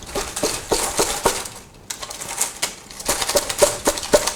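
Stiff PET plastic strip from a cut bottle being handled, crackling and clicking irregularly, with a short lull about halfway through.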